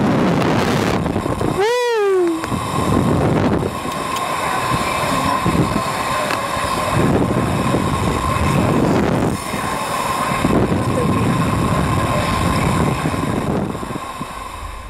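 Wind buffeting the microphone of a camera mounted on a moving slingshot ride capsule, a loud rough rush that rises and falls in gusts. About two seconds in, one rider gives a short yell that falls in pitch.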